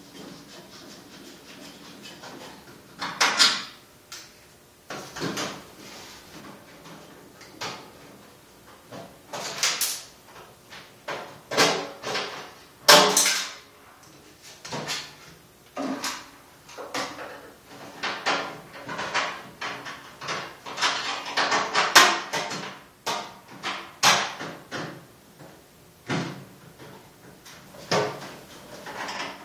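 Irregular knocks, clicks and clatter of hand tools and small metal parts being handled as a screwed-on body piece is taken off a cyclekart, some strikes in quick clusters.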